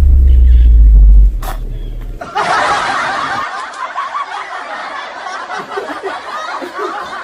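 A loud, deep rumbling sound effect cuts off about a second in, followed by a single knock; from about two and a half seconds in, a laugh track of snickering and chuckling runs on.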